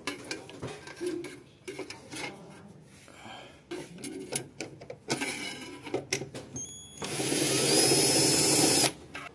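Clicks and handling knocks, then a handheld power drill runs steadily for about two seconds near the end and stops.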